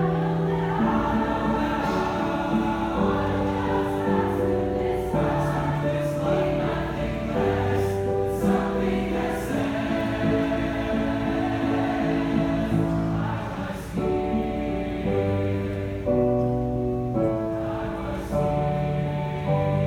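Student choir singing a slow song in long held chords that change every second or so.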